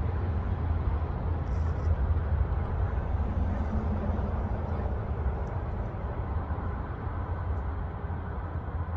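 Wind buffeting the microphone: a steady low rumble that swells and eases slightly.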